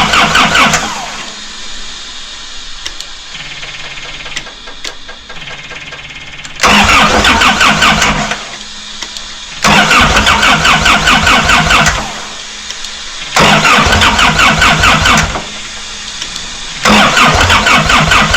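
Diesel engine of a Doosan 7/71 sandblasting compressor being cranked on its starter in short bursts of about two seconds, four full attempts plus the end of one, each with a fast, even chug but no start. The engine is not firing because of an electrical fault.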